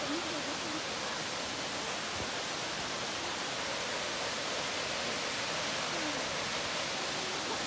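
Waterfall rushing: a steady, even noise that holds level throughout, with faint brief voices barely showing under it.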